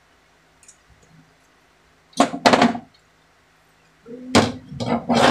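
A man's voice in short wordless bursts: a quick pair about two seconds in, and more near the end, after a near-silent start.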